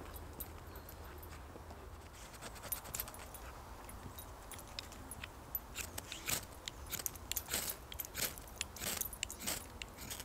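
A knife working along a dry stick: a run of crisp scraping cuts, a few a second, starting about halfway through. Before that, only faint rustles over a low steady rumble.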